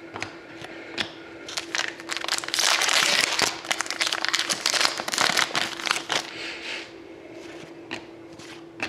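A trading card pack wrapper crinkling and rustling as it is handled, a dense spell of crackling from about one and a half seconds in to about six seconds in, with scattered sharper clicks before and after.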